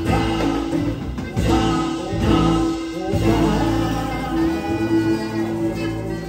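Live Latin band playing a samba-style song with singing: vocals, saxophone, acoustic guitar, electric bass and drum kit, with a long held note through the middle. The music starts to fade near the end.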